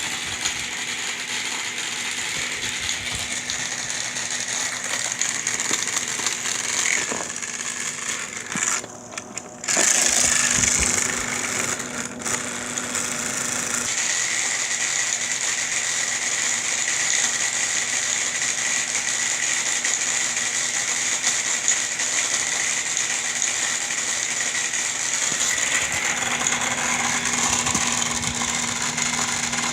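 Air conditioner running with its compressor and blower on: a steady mechanical rattle over a constant hum and a high rushing hiss. It dips briefly about nine seconds in, then comes back louder for a moment before settling.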